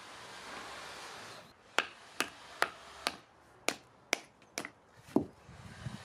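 Hammer knocking on natural stone while setting a dry stone wall: about eight sharp knocks, roughly two a second, after a soft rustling at the start.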